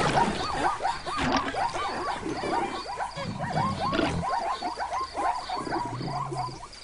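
Animated animal sound effects: a rapid chorus of short rising-and-falling chirps, with a few low grunts about three and four seconds in and again near the end, over a faint even insect-like chirping.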